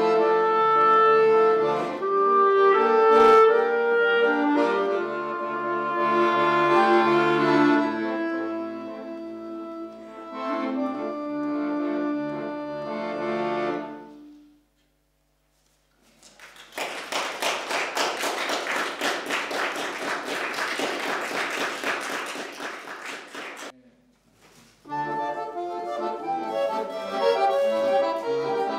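Clarinet and Victoria accordion playing a duet that ends about halfway through. After a short silence an audience applauds for several seconds, cut off abruptly, and after another short gap the clarinet and accordion start playing again.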